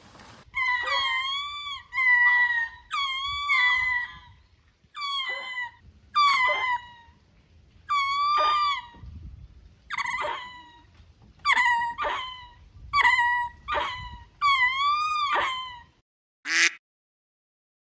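Ring-tailed lemurs calling in chorus: a run of about a dozen loud, wavering cries, each rising and falling in pitch, roughly one a second, ending with one short call.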